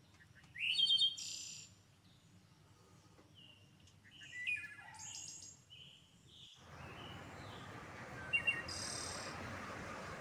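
Birds chirping, with short high calls in a few clusters. From about six and a half seconds in, a steady hiss runs under them and cuts off suddenly at the end.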